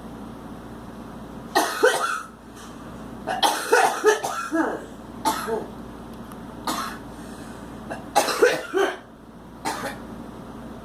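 A girl coughing in repeated fits: a short burst of coughs about a second and a half in, a longer run of coughs around four seconds, single coughs after that, and another cluster near the end.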